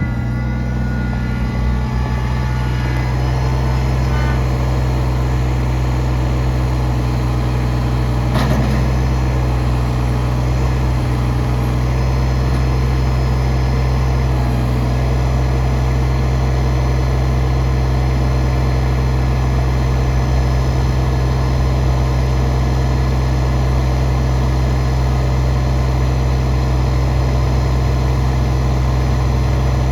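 Kubota BX25 compact backhoe loader's three-cylinder diesel engine running at a steady speed, with a single short knock about eight seconds in.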